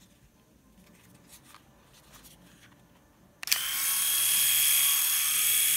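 Philips AquaTouch S1223/45 rotary electric shaver switched on about three and a half seconds in, its motor running with a steady high whine.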